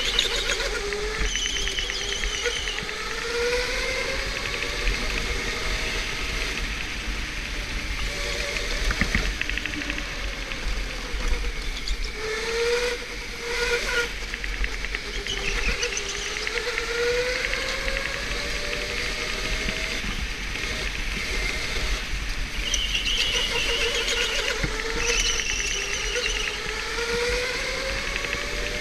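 Electric go-kart's motor whining as it laps, the pitch rising for a few seconds as it accelerates and dropping again into each corner, several times over. Short high tyre squeals come in some of the turns.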